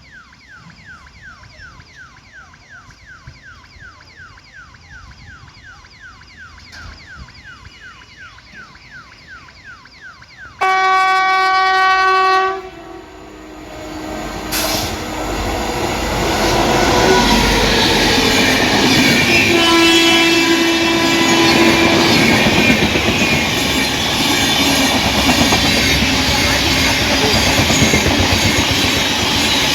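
A quieter repeating falling chirp, about two or three a second, for the first ten seconds. Then a train horn sounds one loud blast of about two seconds. An express train on Indian Railways then approaches and runs past at speed, the rush and wheel clatter on the rails building up and holding loud.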